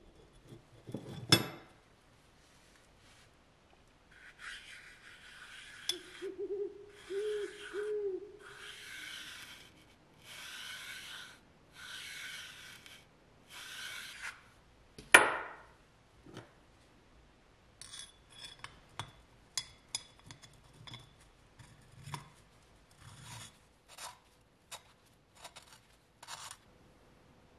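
A sharp knock, then about seven rubbing strokes of roughly a second each with short pauses, a single loud click, and a run of small clicks and taps.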